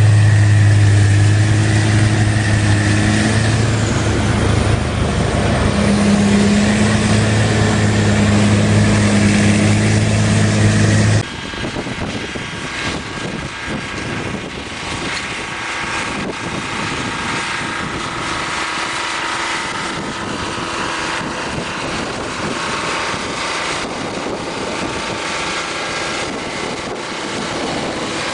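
Heavy diesel engine of a wheel loader driving a snow-blower attachment, running steadily with a deep, loud drone. About 11 seconds in it cuts abruptly to a quieter, more even rush of engine and blown snow from a large rotary snow blower.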